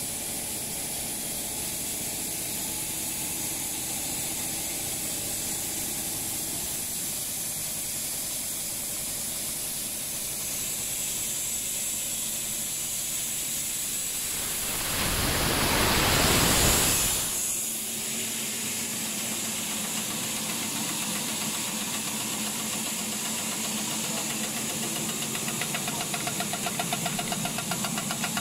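Sugarcane straw extrusion line running: a steady machine hum with hiss. About halfway through, a loud rushing noise swells for about two seconds and fades. Near the end, a fast, even ticking comes in.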